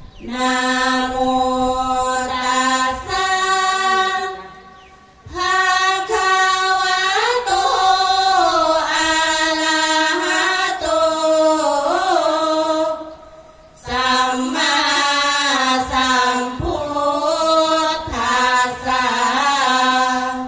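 A group of women chanting sarabhanya, the melodic Thai Buddhist verse recitation, in unison: long held notes that slide and waver in pitch, with brief pauses for breath about four and thirteen seconds in.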